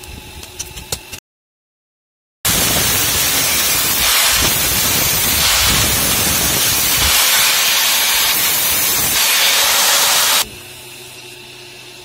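Angle grinder with a cut-off disc cutting into a steel bearing ring: a loud, steady hiss for about eight seconds that stops abruptly. It is preceded by a few sharp metallic clicks.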